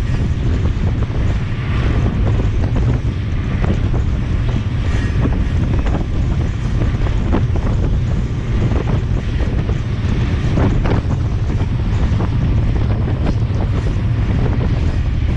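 Strong wind buffeting the microphone over the steady low rumble of the iron ore train rolling along the rails, with a few faint knocks in the middle.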